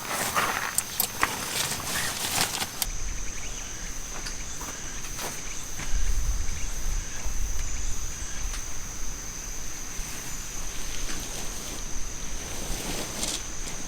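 Insects trilling steadily in one high, unbroken tone. Scattered clicks and knocks come in the first few seconds, and a low rumble runs through the middle.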